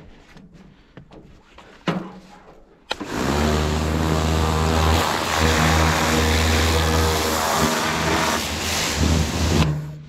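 Pressure washer, after a couple of light knocks, kicking in about three seconds in and running with a steady low hum and a dense hiss, then cutting off suddenly near the end.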